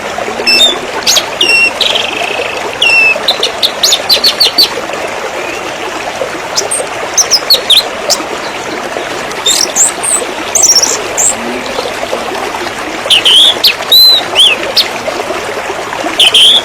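River water flowing steadily, with songbirds chirping and whistling over it in repeated short notes. The bird calls come in clusters near the start, in the middle and towards the end, and are the loudest sounds.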